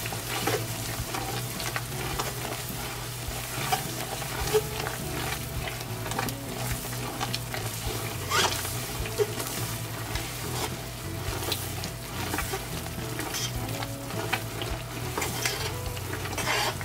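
Cajun garlic butter sauce sizzling in a stainless steel pot while a spatula stirs it, with repeated short scraping strokes against the pot. A steady low hum runs underneath.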